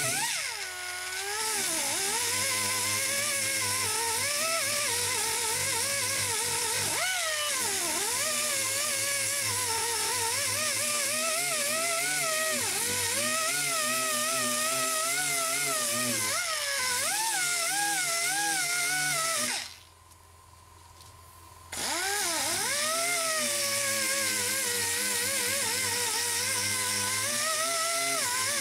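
Air-powered die grinder with a 120-grit sanding disc grinding down a fiberglass patch, its whine rising and dipping in pitch as it is pressed into the work. It stops for about two seconds about two-thirds of the way through, then runs again.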